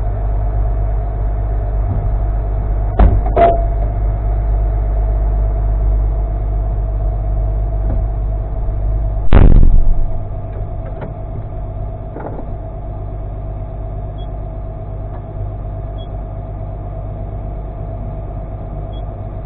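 Komatsu hydraulic excavator's diesel engine running steadily, a low drone with a steady higher tone over it. Two sharp clicks come about three seconds in and a loud thud about nine seconds in, after which the engine sounds quieter.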